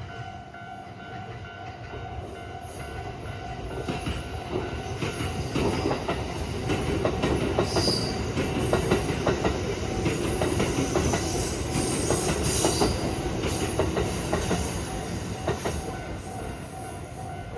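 A train passing over a Japanese level crossing, its wheels clacking over the rail joints. It grows louder to a peak in the middle and fades near the end. The crossing's warning bell rings steadily under it and stops just before the end.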